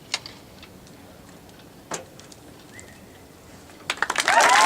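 A quiet crowd with a couple of single sharp claps, then about four seconds in applause breaks out and quickly swells, with cheering and whistles.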